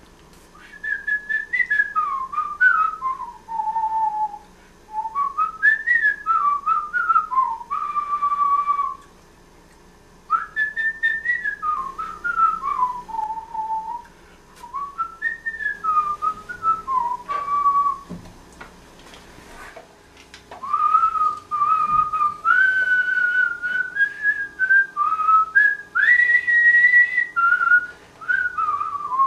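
A person whistling a melody by mouth, in phrases of a few seconds separated by short pauses for breath.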